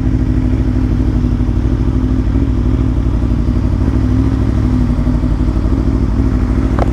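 Aprilia Tuono V4 1100 Factory's V4 engine running steadily at constant low revs, with no revving.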